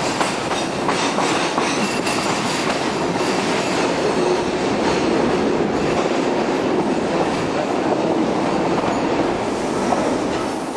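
Passenger train running, heard from inside a British Rail Mk3 coach: a steady rumble of wheels on rail with clattering over rail joints and points. A faint high wheel squeal runs through it.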